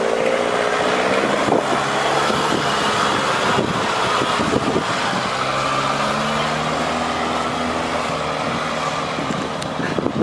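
Off-road 4x4 engines running close by. An engine's pitch falls in the first half-second, and from about six seconds in an engine rises and holds as the Suzuki 4x4 drives off.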